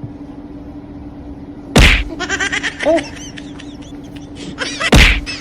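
Two sharp smacks about three seconds apart, with a run of short, high chirping squeaks between them, over a faint steady hum.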